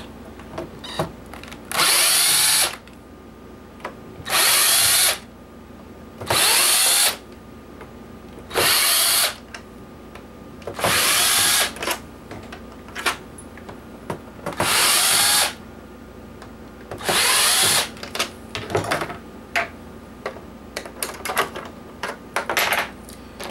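Power drill backing out the seven screws from a PlayStation 3's top casing: seven short runs of motor whir, each under a second long and roughly two seconds apart. Small clicks and knocks of screws and plastic being handled come between the runs and after them.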